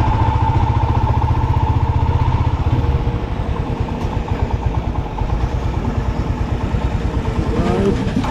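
Motorcycle engine running with a rapid, even firing pulse as the bike rides over a rough gravel road. The engine eases off slightly about three seconds in.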